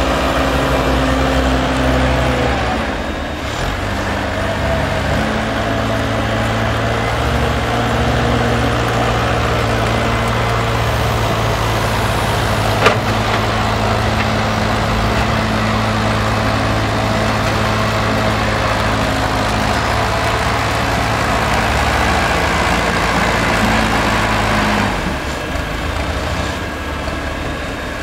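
Diesel engine of a wheeled excavator running steadily under load while it digs sludge. Its note shifts a few seconds in and drops near the end. There is a single sharp knock about halfway through.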